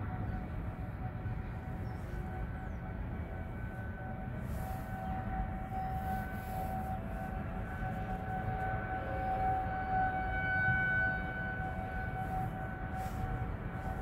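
Federal Signal 2001-series tornado sirens sounding a steady tone in a monthly test, heard from inside a car. The pitch holds steady while the level swells loudest about ten seconds in, as a rotating siren swings toward the car. A low rumble runs underneath.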